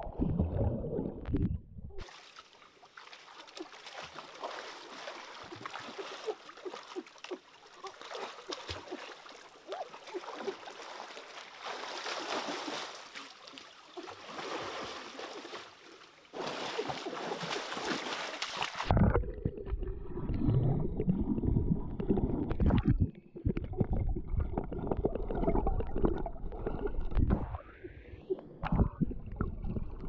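Stream water over rocks. It starts muffled and rumbling as heard underwater, switches about two seconds in to an open, rushing hiss of running water, and turns muffled and rumbling underwater again about two-thirds of the way through, with water sloshing and gurgling around someone moving in the pool.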